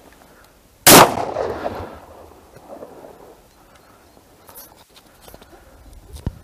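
A single shotgun shot about a second in, its echo trailing off for about a second. A short, sharp click near the end.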